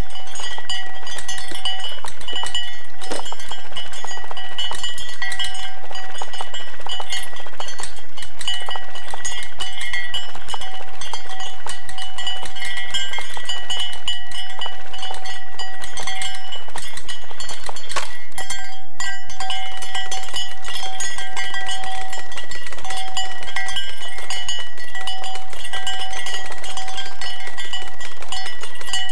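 Holmes pedestal fan running, with a constant fast clattering and clinking and steady ringing tones over it. The noise dips briefly about two-thirds of the way through.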